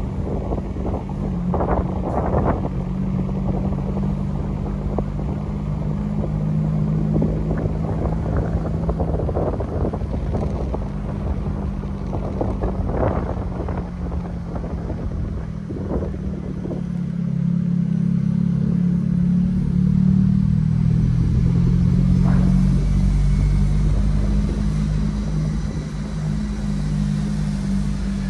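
A car's engine running steadily while driving, with tyre and road noise and a few brief knocks. The engine drone gets louder about two-thirds of the way through.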